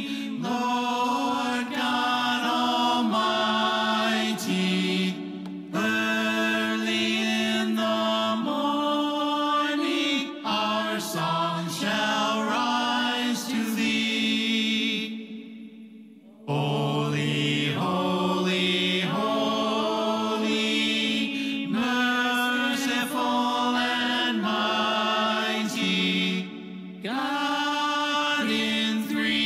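A closing worship song in church: singing in long held phrases over sustained low notes, with a short break about fifteen seconds in.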